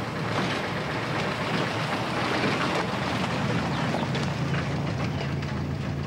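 Engine of an old oplet minibus running as it pulls up, settling into a steady low idle hum for the last couple of seconds.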